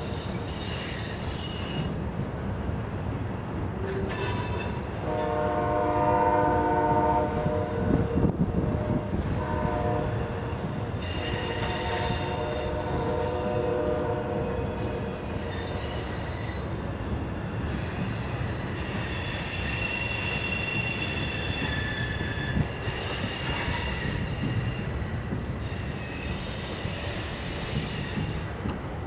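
Freight train cars rolling slowly through a curve, with a steady rumble and the wheels squealing in high, thin tones at intervals. A locomotive horn blows for about three seconds, starting about five seconds in.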